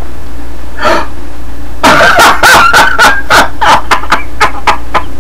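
A man laughing hard. About two seconds in his laugh turns into a high, held squeal, followed by a string of short breathy laughs, about three to four a second.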